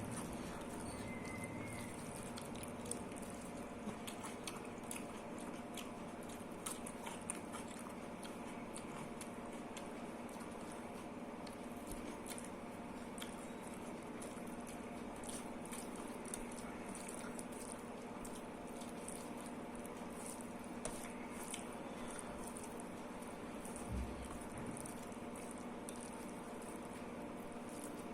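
Close-miked eating sounds: a person chewing dal and rice, with wet, squishy mouth sounds and many small clicks throughout. A soft low knock comes near the end, over a steady background hum.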